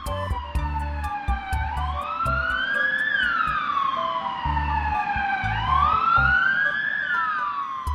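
Ambulance siren wailing: the pitch rises for about a second and a half, then falls more slowly, repeating about every four seconds, twice over. Under it runs background music with a low bass line and a light ticking beat.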